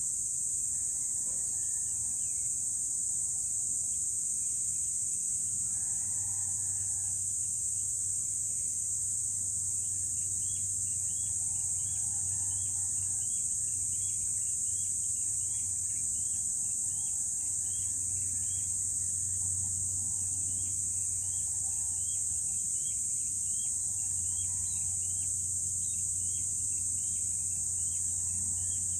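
Steady, high-pitched insect chorus. From about ten seconds in, a bird repeats a short call about twice a second over it, with a low hum underneath.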